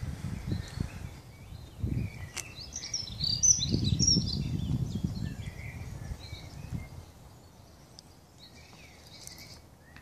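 Bernese mountain dog puppy gnawing and mouthing a rubber ball toy, an irregular low scuffing that dies away after about six seconds. Small birds chirp in the background, busiest in the middle.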